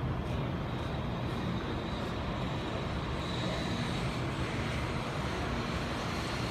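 Taiwan High Speed Rail 700T train pulling out of the station: a steady rush of running noise with a faint high whine.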